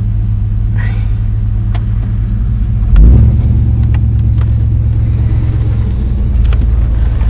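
1995 GMC Suburban's engine idling with a steady low hum, with a sudden low thump about three seconds in.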